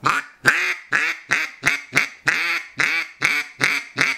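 Handmade wooden duck call fitted with an echo insert, blown in a run of about a dozen short quacks, roughly three a second, each note dropping in pitch, as the newly finished call is tried out.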